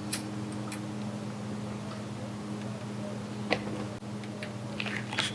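A few light clicks and ticks from parts and tools being handled during a steering-wheel hub install, over a steady low hum.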